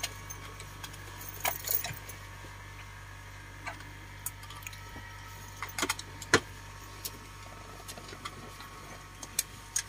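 Steady low hum inside a small propeller plane's cabin, with scattered sharp clicks and knocks, the loudest a little after six seconds in.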